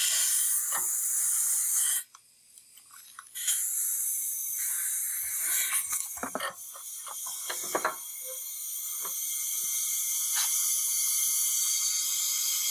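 Compressed air hissing out of the open oil-fill neck of a Briggs & Stratton flathead engine under a cylinder leak-down test: air is leaking past the piston rings into the crankcase, a large leak with the gauge at about 30%. The hiss stops about two seconds in and comes back a second or so later, with a few light knocks and clicks in the middle.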